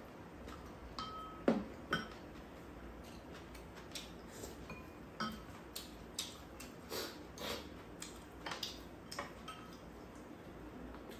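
Eating at the table: spoons and chopsticks clinking and tapping against bowls in scattered small clicks, a few with a short ring, about a second and a half in the loudest.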